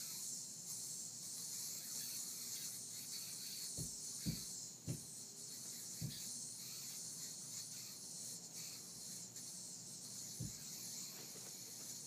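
A spinning yo-yo whirring on its string, a steady high hiss that cuts off suddenly right at the end when it is caught. A few dull thumps come through in between.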